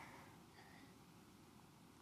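Near silence, with one faint, brief high chirp about half a second in.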